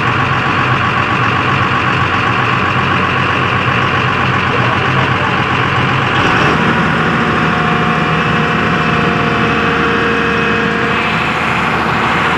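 Hyundai R215L excavator's diesel engine running steadily. About six seconds in its note changes and a steady whine joins in.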